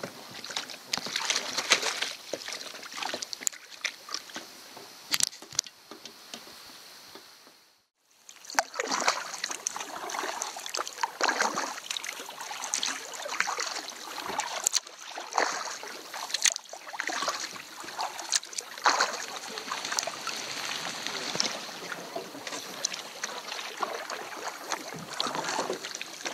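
Canoe paddling on calm water: irregular paddle strokes and water sloshing and lapping against a canoe hull. The sound fades out briefly about eight seconds in, then the paddling and lapping go on.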